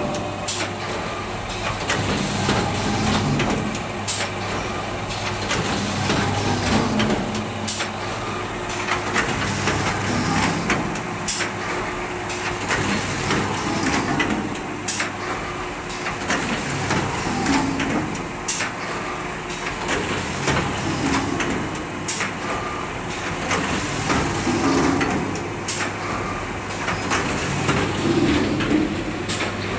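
Paint-roller finishing machine running: a steady machine hum with a high whine over it, and a sharp click recurring about every three and a half seconds as the line cycles.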